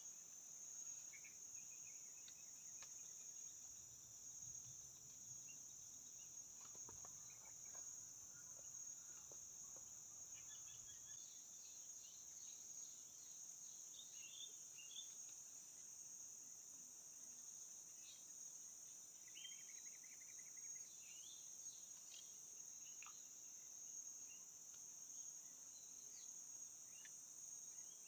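Faint, steady high-pitched insect chorus, with scattered short bird chirps over it.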